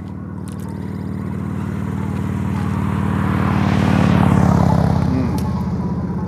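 A motorcycle passing by on the road: its engine grows louder, is loudest about four seconds in, then fades away.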